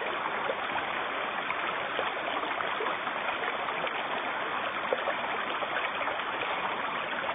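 Shallow river running over a stony riffle: a steady rush of water with small splashes and gurgles throughout.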